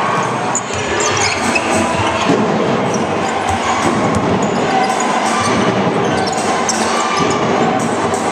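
Live basketball game sound in a large hall: the ball bouncing on the wooden court and shoes squeaking now and then over steady crowd noise.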